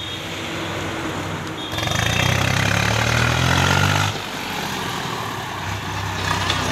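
Tractor diesel engine running. About two seconds in it revs harder, its pitch climbing, then it drops back abruptly just past the middle and runs on steadily.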